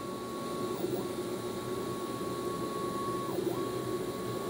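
Fusion3 3D printer's Z-axis stepper motors whining steadily as they drive the lead screws and raise the build plate. The whine briefly dips in pitch and recovers about a second in and again a little past the middle.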